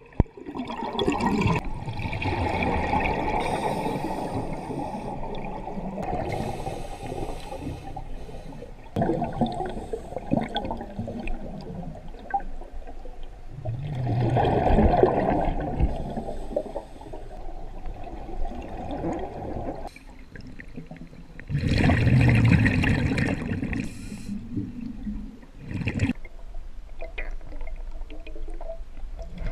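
Scuba diver breathing underwater through a regulator: gurgling surges of exhaled bubbles every several seconds, with quieter stretches between breaths.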